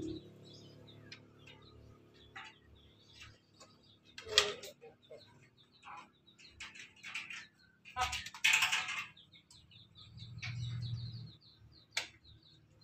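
Chickens calling and pecking at feed, with scattered short taps and two louder calls about four and eight seconds in.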